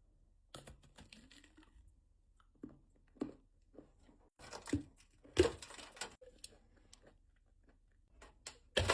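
Biting into and chewing a cold milk chocolate Easter egg shell: scattered crunches and mouth noises, with the loudest crunch about halfway through and another sharp one near the end.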